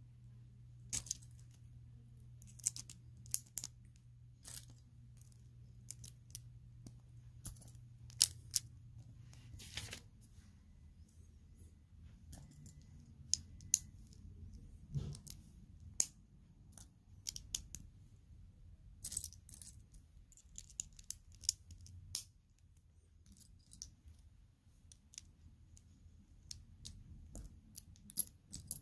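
Plastic Lego bricks being handled and pressed together, a string of irregular sharp clicks and snaps as pieces are fitted and picked from the pile. A faint low hum underneath stops about a third of the way in.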